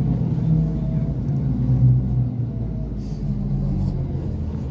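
Inside a NefAZ 5299 city bus under way: the steady low drone of the engine and drivetrain, with road noise from the tyres.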